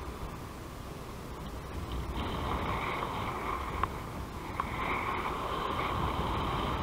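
Airflow rushing over the microphone of a paraglider in flight, growing louder about two seconds in, with a couple of short sharp clicks.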